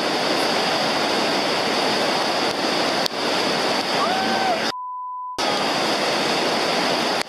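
Floodwater of an overflowing creek rushing hard and steadily. About two-thirds of the way through, the water sound cuts out for under a second and is replaced by a single steady beep tone, like a censor bleep.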